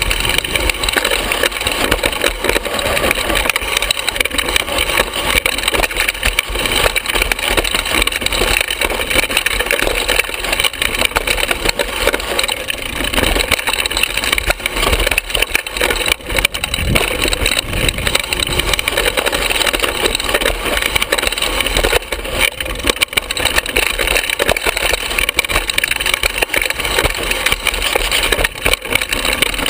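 Hardtail mountain bike rattling and clattering continuously over rough, bumpy singletrack: tyres rolling on dirt and rock under a dense run of sharp knocks from the frame and parts. It is heard close-up from a camera mounted on the frame near the bottom bracket.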